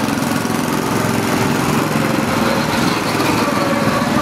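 Several small go-kart engines running steadily as karts drive past on the track, their engine notes wavering slightly in pitch.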